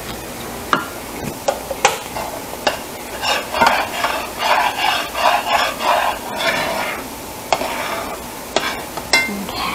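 A spatula stirring and scraping a thick white sauce in a cast-iron skillet, a run of quick rhythmic scrapes for about three seconds in the middle. A few sharp utensil clicks come before and after it.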